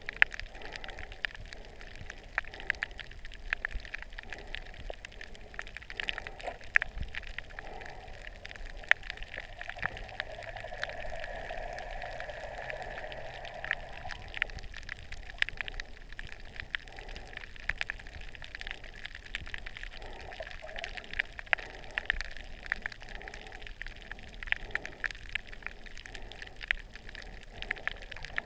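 Muffled underwater sound picked up by a submerged camera: a constant crackle of small, irregular clicks over a wash of moving water. A steadier hum grows louder for a few seconds in the middle.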